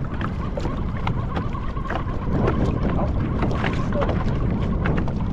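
Wind buffeting the microphone and water slapping against a kayak hull on choppy water, with many scattered small clicks and splashes.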